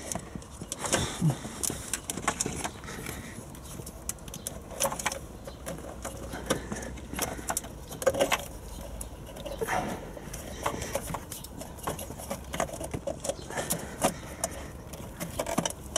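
Irregular light clicks, taps and rustles of a hand working around plastic parts and rubber hoses near the oil-filter housing in a VW Golf 7 engine bay.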